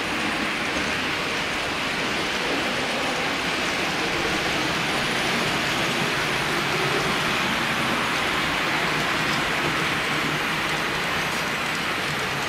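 H0-scale model train running past: a steady rolling, rushing noise of small metal wheels on track, a little louder in the middle as the train passes close.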